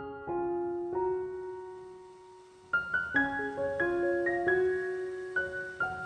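Background solo piano music playing slow, gentle notes; after a lingering chord fades, a new run of notes starts a little under three seconds in.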